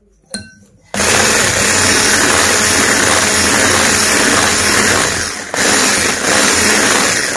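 Electric hand mixer switched on about a second in, its motor running steadily as the wire beaters whisk eggs, sugar, oil and vanilla into a cake batter in a glass bowl, with two brief dips near the end.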